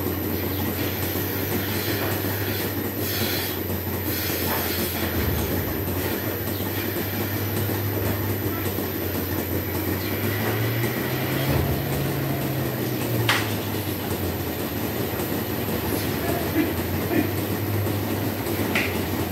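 Milking plant machinery in a dairy shed running steadily: a constant low mechanical hum and rattle. The hum's pitch rises about ten seconds in and drops back a couple of seconds later, with a few sharp clanks near the end.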